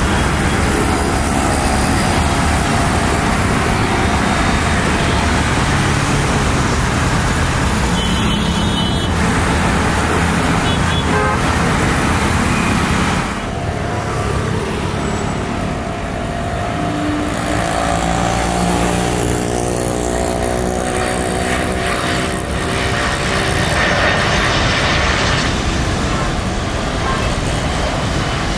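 Jet airliner passing at low altitude: a steady roar of engine noise with an engine whine that slowly falls in pitch. It changes abruptly about halfway through, then the whine rises and falls again as another pass goes by.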